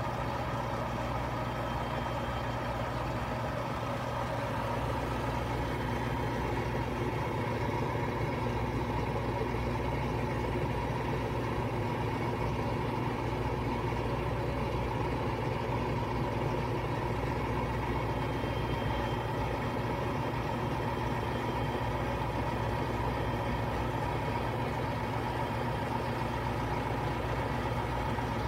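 Front-loading washing machine on its final spin cycle: the drum spinning fast with a steady motor hum and whirr, getting a little louder over the first several seconds.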